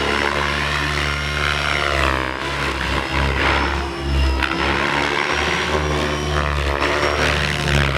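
RC model helicopter's rotor and motor whining through 3D aerobatic manoeuvres, the pitch rising and falling repeatedly, most clearly about two and four seconds in.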